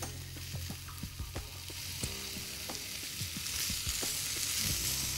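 Thick slices of pork belly sizzling in a lightly oiled nonstick frying pan as they are laid in to sear over gentle heat, with scattered small clicks and pops. The sizzle grows louder in the second half.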